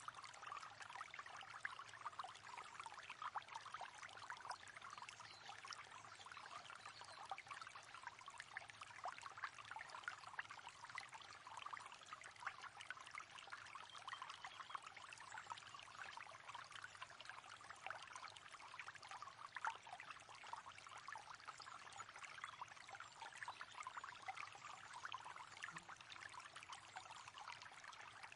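Faint, steady flow of river water, a dense patter of small trickles and splashes.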